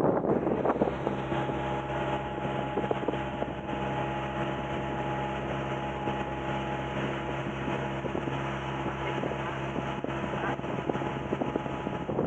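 Outrigger boat's engine running steadily under way, a constant even hum that comes in about a second in, with wind buffeting the microphone throughout.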